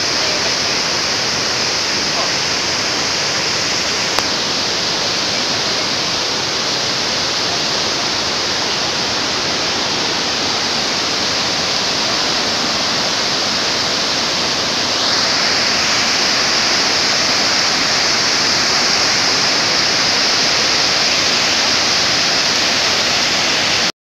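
Waterfall cascades rushing: a steady, loud wash of falling water that grows slightly louder about fifteen seconds in. A single brief click about four seconds in.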